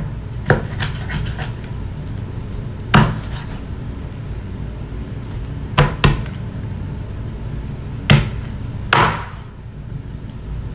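Chef's knife chopping through raw chicken and knocking on a wooden cutting board: about six sharp knocks at irregular intervals, the last one longer and scraping, over a steady low hum.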